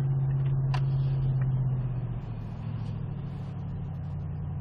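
A Ford Raptor R's supercharged V8 runs at low speed, heard from inside the cab. About two seconds in the engine note drops lower and quieter as the truck slows.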